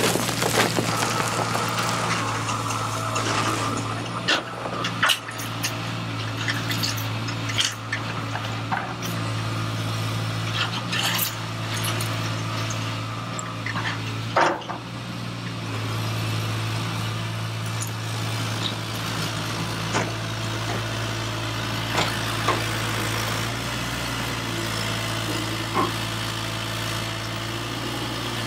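Steady hum of small electric motors in RC model construction machines, a model screening plant's conveyor and an RC excavator, with scattered sharp clicks and ticks of grit and small stones dropping off the conveyor into a plastic dump bed.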